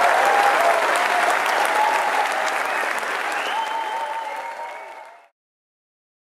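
Live audience applauding and cheering. It fades out steadily and cuts to silence about five seconds in.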